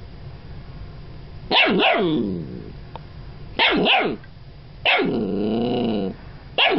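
Golden retriever puppy barking in play: four high, yappy barks, each dropping in pitch, the third drawn out about a second, the last near the end.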